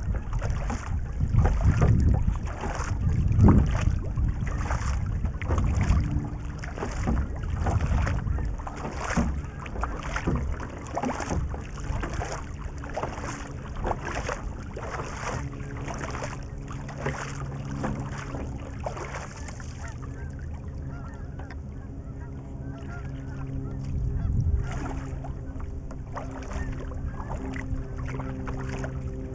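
ONNO paddle blades dipping and splashing into lake water in a steady stroke rhythm, with wind buffeting the microphone in the first few seconds. A faint steady low hum of several tones sits under the strokes in the second half.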